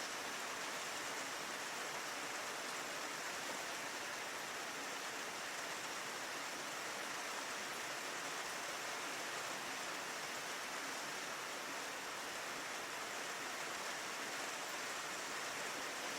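Steady rain falling on a window pane: an even hiss of drops with a few faint separate ticks.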